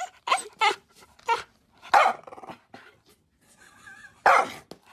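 Small dog growling and barking in short bursts while it keeps hold of a phone in its mouth in a playful tug-of-war. The loudest burst comes about two seconds in and a longer one near the end.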